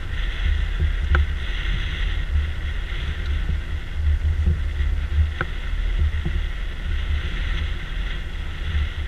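Gusty wind rumbling on the microphone aboard an open fishing boat, over a steady higher hiss, with two short ticks, about a second in and again past five seconds.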